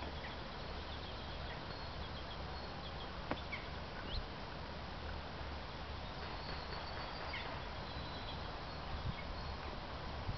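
Outdoor ambience: a steady background hiss with faint, scattered chirps of distant birds, and a single light click about three seconds in.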